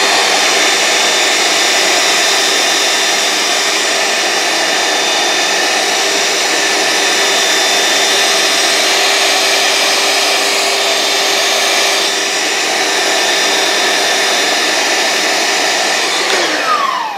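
Small handheld vacuum with a brush nozzle running steadily as it sucks leftover coffee grounds out of an espresso grinder's burr chamber. Near the end it is switched off and its pitch falls away as the motor winds down.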